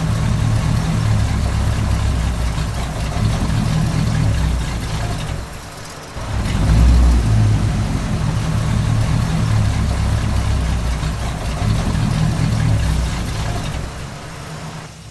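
Steady low motor-like rumble that drops away briefly a little past the middle, comes back, and fades near the end.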